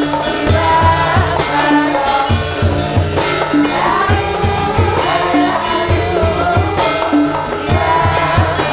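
Javanese gamelan music with female sinden singing a wavering melodic line over it, kendang drum strokes and a repeated struck metal note keeping a steady beat.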